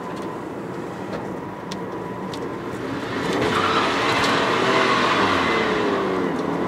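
Toyota Chaser Tourer V's turbocharged 1JZ-GTE straight-six driven hard. The engine gets louder about three seconds in, its pitch rising and falling, as the tyres squeal through a corner.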